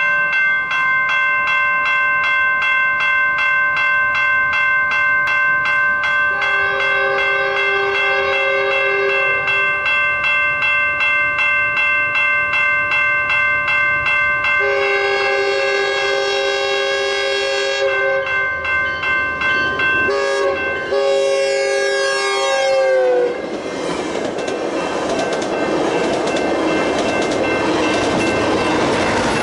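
Grade-crossing warning bells ringing steadily while a Metrolink cab car's horn sounds for the crossing in two long blasts, the second broken near its end. The horn's pitch drops as the cab car passes, and then the train rushes by with steady wheel and rail noise.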